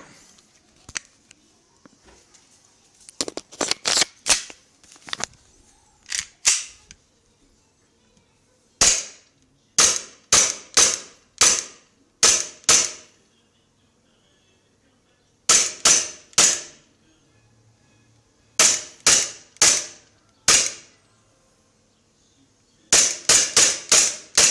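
KSC Glock 19 gas blowback airsoft pistol firing semi-auto, each shot a sharp crack with the slide cycling and a short gas hiss. The shots come in quick strings of two to eight, with pauses of a second or two between strings.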